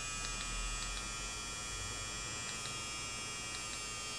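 DragonHawk Mast Archer wireless rotary tattoo machine (3.5 mm stroke) running steadily with a thin, high whine and an underlying hum, its speed being turned down to about 8.2 volts after it ran way too fast.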